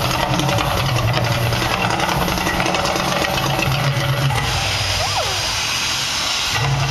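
Mirage volcano show's gas flame jets firing over a deep rumble, with a dense roaring hiss. About four and a half seconds in, a brighter hissing rush rises for two seconds as a tall fireball shoots up from the crater.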